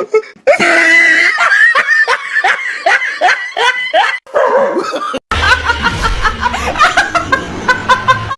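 A woman laughing hard in quick, high-pitched repeated bursts. About five seconds in, the sound changes abruptly and a low steady background comes in under the continuing laughter.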